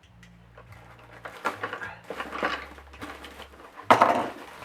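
Cardboard box being cut and torn open and its packing handled: a run of irregular scraping and rustling noises, the loudest about four seconds in.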